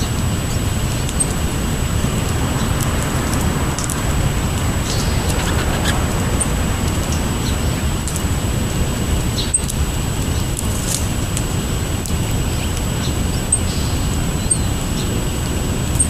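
Steady low outdoor rumble with a few short, high chips from small birds scattered through it.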